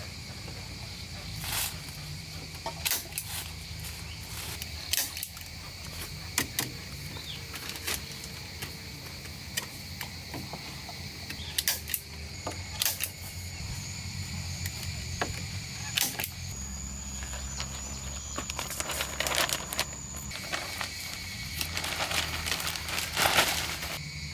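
Irregular knocks and taps from hand building work, spaced a second or more apart and sharpest near the end, over a steady high-pitched background drone.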